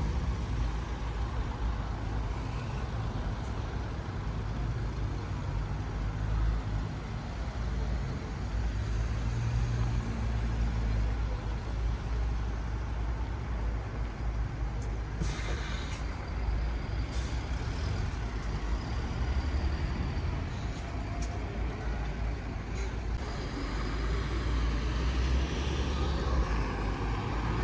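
Street ambience with a steady low rumble of idling and passing motor vehicles, and a short hiss about fifteen seconds in.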